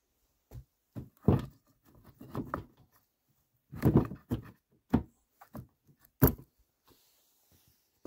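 Wooden pole rack knocking and clattering as it is set down on a log frame over a plastic lid and shifted into place: a string of irregular hollow knocks, the loudest about a second in, around four seconds in and a little after six seconds in.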